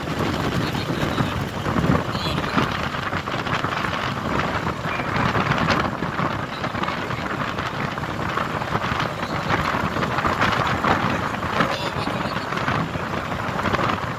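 Steady rush of wind buffeting the microphone mixed with a vehicle's engine and tyre noise, as heard from a vehicle driving over sand.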